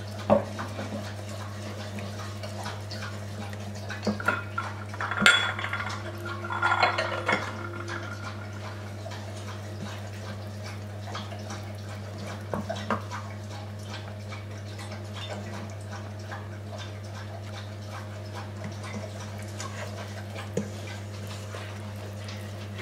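Wooden spoon stirring thick chocolate cake batter in a stainless steel mixing bowl, knocking and scraping against the metal at irregular intervals, busiest from about four to eight seconds in, over a steady low hum.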